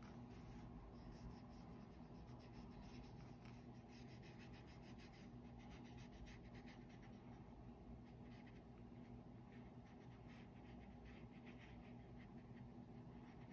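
Faint, soft scratching of a watercolour brush stroking across paper, many short strokes, over a low steady hum.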